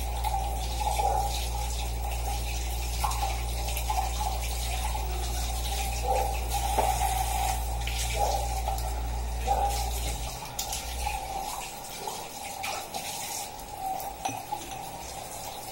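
Kitchen tap running while glasses are rinsed under it, with scattered light clinks of glass. A low hum underneath stops about ten seconds in.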